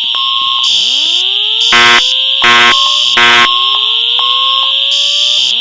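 Building fire alarm system sounding between voice-evacuation messages. Horns blast three short pulses in a row, the three-pulse temporal evacuation pattern, over a slow rising whoop tone that sweeps up in pitch and restarts every two to three seconds, with a steady high-pitched tone underneath.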